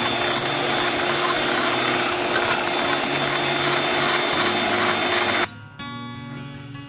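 Electric hand mixer running at a steady speed, its beaters whipping a cream mixture in a bowl, with a steady motor hum; it cuts off suddenly about five and a half seconds in.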